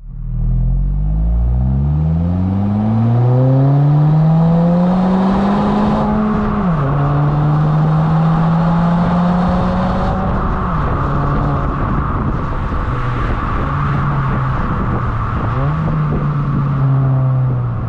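The 2023 Honda Civic Si's 1.5-litre turbocharged four-cylinder, heard from the rear of the car, accelerating hard: the revs climb steadily for about six seconds, then drop sharply at a gear change. After that it pulls at steadier revs, dipping and rising again near the end.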